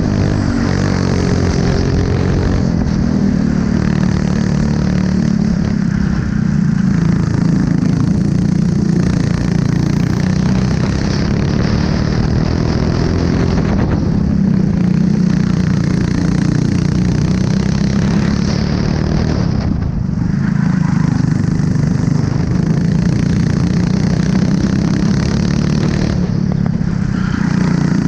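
Honda four-stroke kart engine heard onboard at racing speed. Its pitch rises as it accelerates along the straights and drops several times as the driver lifts off for corners.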